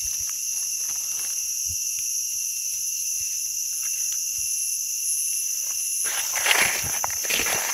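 Insects calling steadily at a high pitch throughout. From about six seconds in, footsteps crunch through dry leaf litter.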